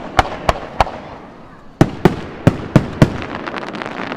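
Aerial fireworks banging: three sharp reports in the first second, then a quicker run of five about halfway through, each followed by a rolling echo, with small crackles beginning near the end.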